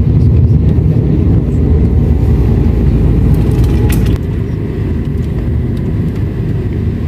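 Steady low rumble of a road vehicle's engine and tyres heard from inside the cabin while driving, easing off a little about four seconds in.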